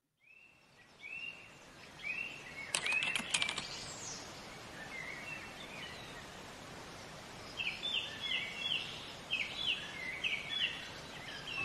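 Faint nature ambience: a steady hiss with birds chirping in short, repeated calls that come in quick runs near the end. A short run of clicks about three seconds in.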